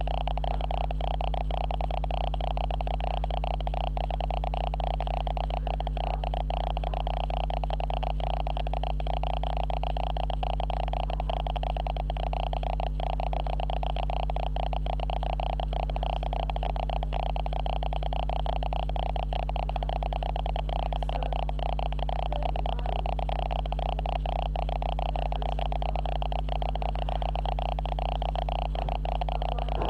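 Camera's own electrical noise: a steady, loud hum and buzz laid over the recording by a faulty camera, unchanging, with no other sound heard through it.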